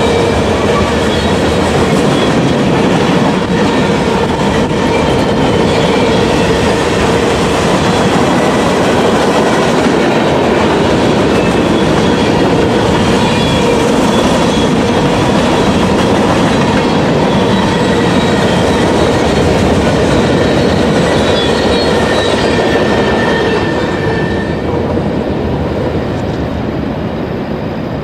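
Freight train cars of a CSX manifest freight rolling past, with a steady clickety-clack of wheels over the rail and a thin metallic ringing squeal. The sound eases off over the last few seconds.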